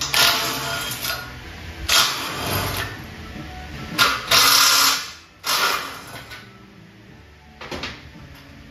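Background music with several short bursts of a cordless drill running, each under a second long; the loudest come right at the start and about four seconds in, with a weaker one near the end.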